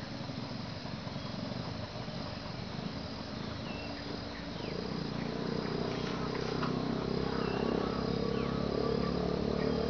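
Insects chirring, a high thin note repeating in short even pulses. A low steady hum grows louder about halfway through, and a few faint short chirps come and go.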